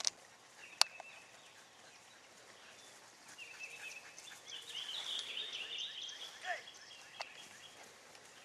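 Faint outdoor ambience with birds chirping in the background, loudest in the middle and second half. A single sharp click comes just under a second in.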